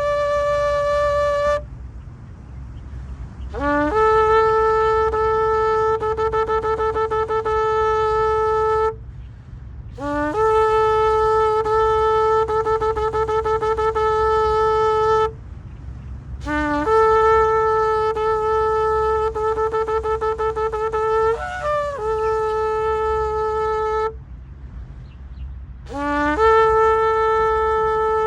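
Shofar (ram's horn) blown in a series of long, steady notes. Each note scoops quickly up into pitch, holds for about five seconds and breaks off for a short breath before the next. One note breaks with a brief dip in pitch about three-quarters of the way through. A steady low rumble lies beneath.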